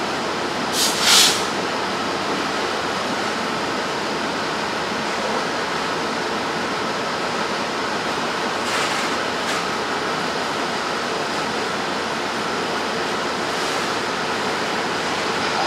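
Freight train rolling past: a steady rushing rumble of the cars on the rails, with a brief sharper high-pitched noise about a second in and another near nine seconds.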